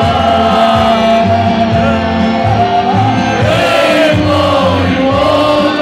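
Loud live band music with a pulsing bass and a sung melody carried by many voices together, a club crowd singing along.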